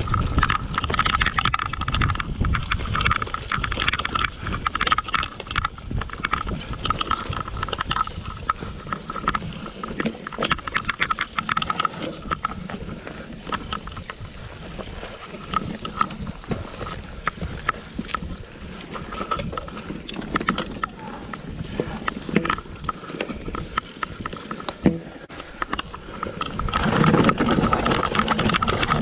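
Mountain bike ridden fast down forest singletrack: tyres rolling over dirt and roots, with frequent rattles and knocks from the bike. A steady high tone comes and goes, and the noise grows louder near the end.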